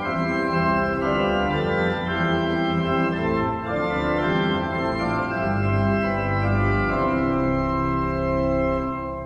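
Organ music with held, sustained chords, starting to fade out near the end.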